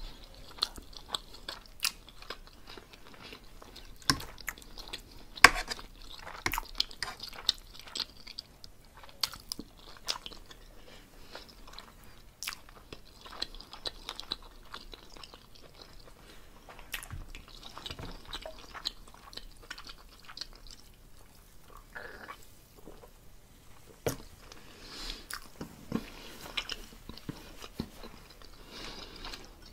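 A person chewing tender pork roast and cabbage close to the microphone, with many short sharp mouth clicks throughout.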